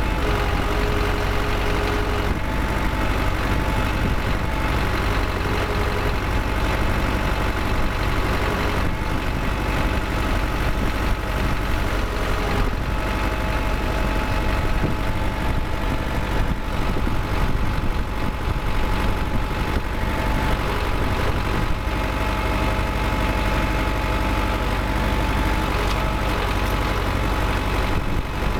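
Belarus MTZ-82.1 tractor's diesel engine running at a steady speed with the power take-off engaged, a steady whine from the PTO drive over the engine's low hum.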